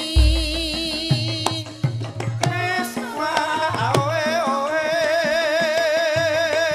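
Javanese gamelan music: a high voice singing with wide vibrato over regular kendang drum strokes, with a deep gong stroke booming and slowly dying away just after the start.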